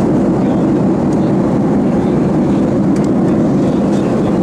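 Steady cabin noise of a Boeing 737 airliner in flight: jet engines and rushing air heard from inside the cabin as an even, low rush that does not change.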